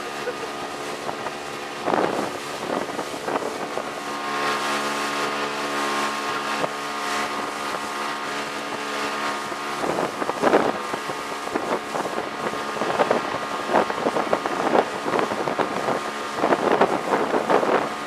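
Outboard motor running steadily at speed, with the hull slapping and splashing through short chop several times, loudest near the middle and in the last few seconds, and wind buffeting the microphone.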